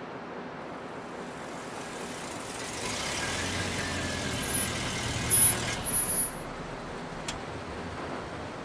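A car driving past on the street. Its noise swells over a few seconds, is loudest about five seconds in, then falls away.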